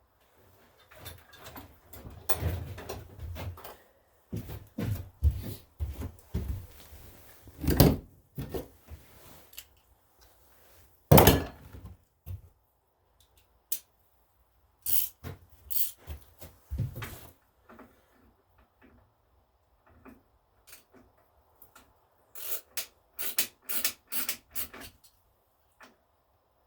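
Hand tools and metal engine parts being handled on a workbench during an engine teardown: scattered clunks, clicks and rubbing. The two loudest are single sharp knocks about eight and eleven seconds in, with a quiet spell in the second half before a last cluster of clicks near the end.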